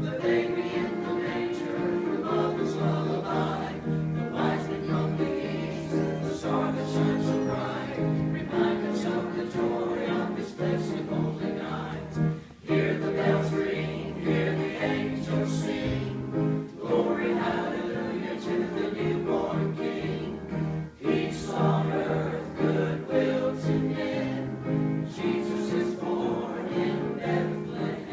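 Church choir singing, with two brief breaks between phrases.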